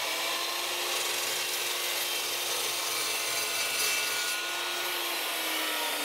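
An Evolution 15-inch carbide-blade metal-cutting chop saw running and cutting through a crimped copper lug on heavy battery cable, a steady motor whine under a hissing cut. Near the end the whine starts to drop in pitch as the saw winds down.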